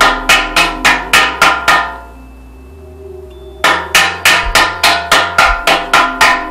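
Background music: two runs of evenly repeated, ringing struck notes, about three or four a second, over held low notes, with a short gap between the runs.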